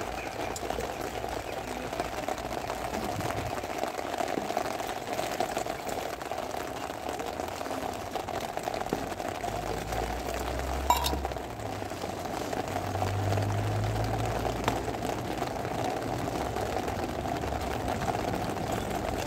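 Rainwater being scooped from a metal pan with a steel cup and poured into plastic bottles, heard as a steady splashing liquid noise. A single sharp knock comes about halfway through.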